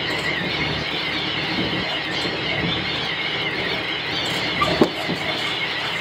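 Train running over a snow-covered track: a steady rushing noise with a high, wavering squeal over it, and a single sharp knock near five seconds in.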